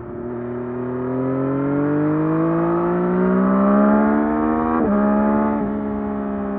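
2024 Yamaha MT-09 SP's 890 cc inline-three engine through its stock exhaust, pulling up through the revs under acceleration with a rising pitch, then a quick gear change about five seconds in, after which it runs steady.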